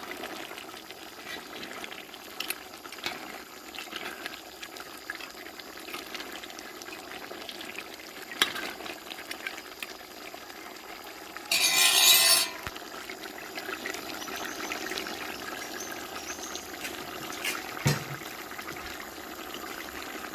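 Pot of curry goat simmering, a steady liquid bubbling with small ticks and clicks throughout. A short, louder rush of noise comes about twelve seconds in, and a single knock near the end.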